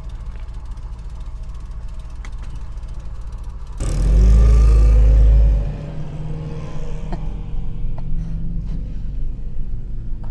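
Pickup truck engine idling steadily, then about four seconds in the engine revs up with a rising pitch and a loud low rumble for about two seconds as the truck pulls away on sand, settling into a steady drive.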